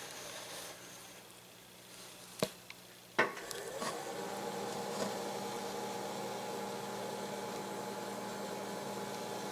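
Two clicks, then an electric motor spinning up over about a second and running on with a steady hum.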